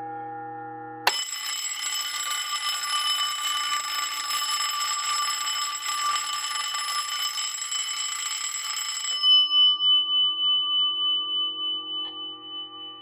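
Electric fire alarm bell sounded by an early-1950s IBM 4206-2 fire alarm control panel. It strikes up suddenly about a second in over a fainter steady tone, rings continuously for about eight seconds, then stops, and the gong rings out with a wavering, fading tone.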